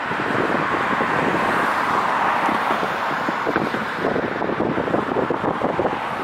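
Steady street and traffic noise, a constant hiss-like rumble, with wind buffeting the microphone.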